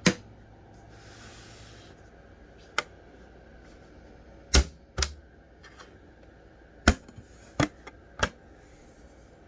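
A handful of sharp clicks and knocks at uneven intervals: computer parts being handled and fitted inside a small PC case.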